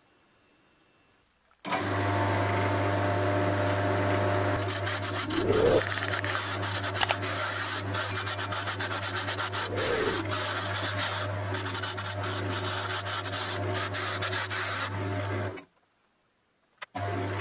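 Wood lathe motor humming steadily while a turning tool cuts a spinning African padauk handle, a continuous rough scraping of the steel edge on the wood. It starts suddenly about two seconds in after near silence, and breaks off for about a second near the end before resuming.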